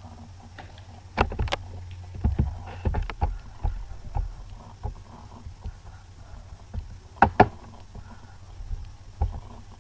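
Scattered clicks and small knocks, with a close pair a little after seven seconds, consistent with a computer mouse being clicked and the desk being handled, over a steady low electrical hum.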